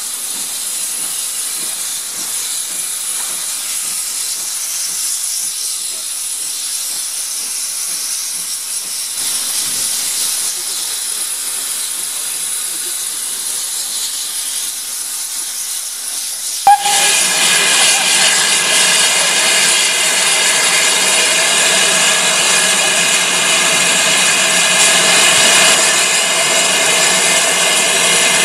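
A steam train working away in the distance, a faint steady noise; then, after a sudden click about 17 seconds in, a loud steady hiss of steam blowing off from a Great Western tank engine close by, with several steady ringing tones in it.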